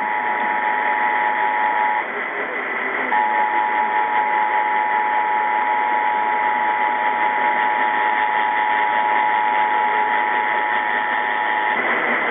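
Emergency Alert System attention signal: the steady two-tone alarm (853 and 960 Hz together), over a constant hiss of static. It drops out for about a second, then resumes and stops shortly before the end.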